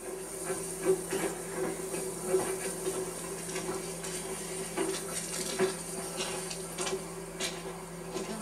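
Railway wagons rattling and clanking as the train rolls slowly along the track, with irregular metallic clinks over a steady hum.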